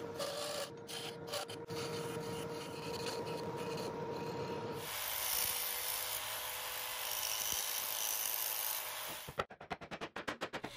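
A wood lathe spins with a steady hum while a hand turning tool scrapes and cuts a chisel-handle blank. About five seconds in the hum stops and a steady scraping hiss carries on. Near the end comes a quick run of short saw strokes in a wooden block.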